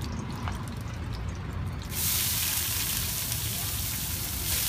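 Noodles dropped into a large wok of hot oil: the oil bursts into a loud sizzle about two seconds in and keeps hissing steadily, with a brief surge near the end. Before that, a few light clicks.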